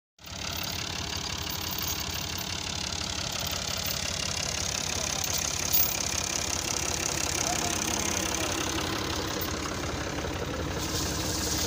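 Fiat 480 tractor's three-cylinder diesel engine idling steadily, with a short knock about halfway through.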